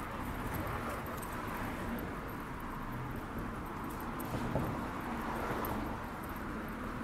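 Steady street ambience: a continuous wash of traffic noise and background bustle, with faint scattered ticks.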